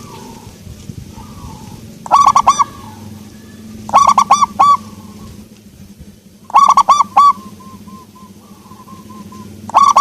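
Zebra dove (perkutut) cooing: loud phrases of three or four quick notes, repeated every two to three seconds, with softer cooing notes between them over a steady low hum.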